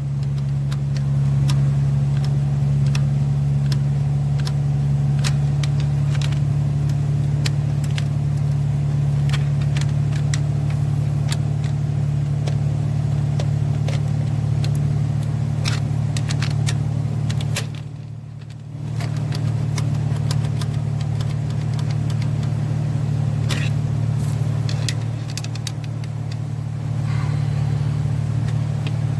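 2015 Chevrolet Silverado's 5.3 L V8 running at idle with a steady low hum and scattered sharp ticks, valvetrain noise from a defective lifter that is not holding oil pressure and is causing a misfire. The sound drops away briefly about two-thirds of the way through.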